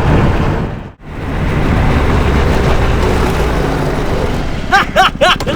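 Go-kart engine running steadily at speed, with a short break about a second in. A few short, high squeals come near the end.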